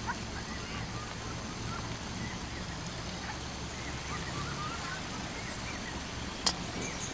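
Outdoor ambience: a steady hiss over a low hum, with faint, scattered short bird chirps throughout and one sharp click about six and a half seconds in.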